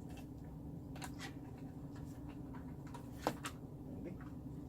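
Light clicks and taps of plastic chair trim pieces being handled and fitted into place, with one sharper click about three seconds in, over a steady low hum.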